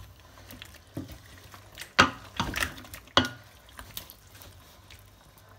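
A wooden spoon stirring chunks of meat and snails through a thick, reduced sauce in an enamelled pot, with several sharp knocks of the spoon against the pot, the loudest about two seconds in.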